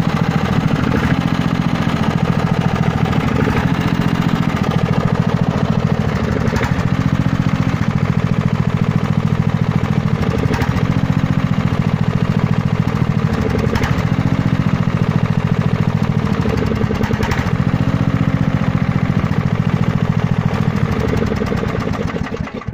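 Ride-on lawn mower's petrol engine running on diesel fuel, its pitch dipping briefly every three or four seconds. It stops near the end.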